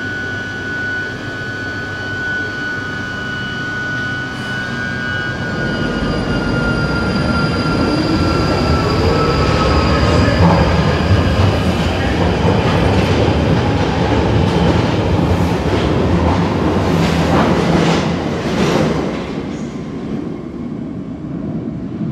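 London Underground tube train pulling out of the station: the traction motors give a whine that rises in pitch as it accelerates, and the sound grows louder with a run of clicks from the wheels over the rail. It fades near the end as the last cars leave.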